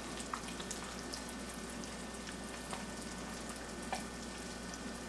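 An egg frying in butter in a well-seasoned cast iron skillet: a steady low sizzle with a few scattered small pops.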